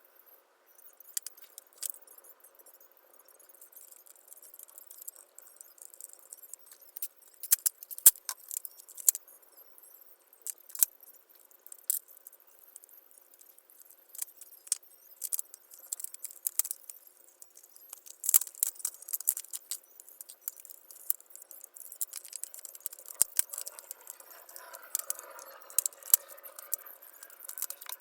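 Irregular light clicks and rattles of small hard parts and tools being handled, of the kind heard while taking apart an electric jigsaw, over a faint steady hum.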